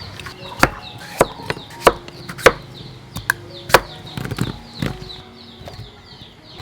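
Chopping with a knife on a wooden board: a series of sharp strikes at an uneven pace of roughly one every half-second to second, with chickens clucking in the background.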